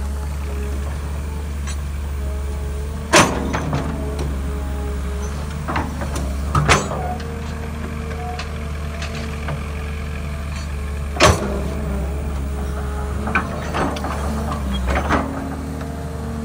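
Tracked hydraulic excavator's diesel engine running steadily under load as its bucket digs into dry soil, with sharp metallic clanks from the bucket about three seconds in and again about eleven seconds in, and lighter knocks in between.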